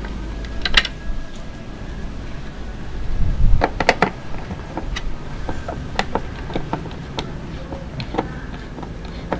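A screwdriver prying at the plastic grille of a 10-inch car subwoofer: scattered plastic clicks and creaks, with a louder cluster of clicks about four seconds in.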